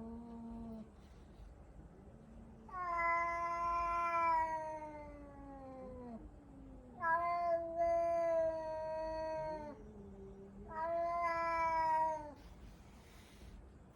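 Domestic cat meowing: three long, drawn-out meows, the first lasting over three seconds and slowly falling in pitch, with a short low call between the second and third.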